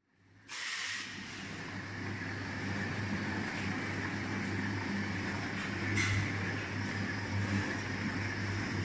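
Double cone mixer running: its electric motor and worm gearbox turn the stainless-steel cone with a steady hum and mechanical whirr, starting about half a second in. A faint click comes about six seconds in.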